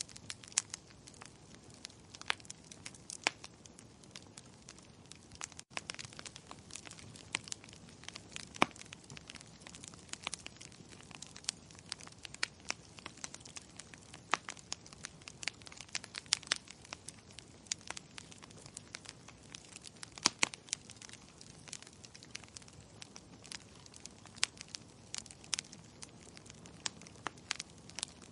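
Wood fire in a fireplace crackling, with frequent irregular sharp pops and snaps over a low, steady hiss.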